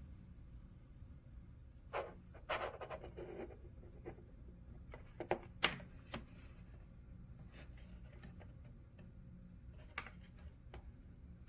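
A few brief rustles and light knocks, loudest a couple of seconds in and again near the middle, over a steady low hum.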